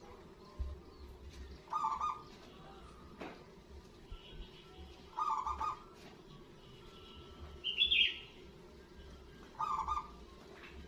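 Local zebra dove (perkutut) singing: short bursts of rapid staccato cooing notes, repeated four times at intervals of three to four seconds. A higher, sharper chirping call comes about eight seconds in and is the loudest sound.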